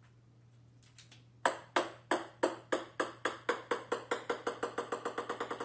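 Ping-pong ball bouncing on a hard wooden floor. About a second and a half in, sharp ringing taps begin, coming quicker and quicker and growing softer as the ball settles.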